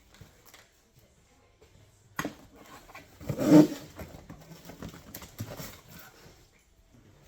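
Unpacking handling noises: packaging being moved about, with a sharp knock about two seconds in and a louder rustling clatter around the middle.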